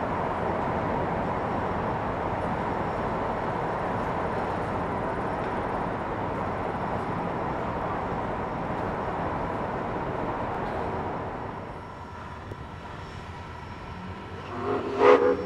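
Steam excursion train behind Soo Line 4-6-2 locomotive #2719 rolling past, a steady rumble that falls quieter about eleven seconds in. A short loud sound comes near the end.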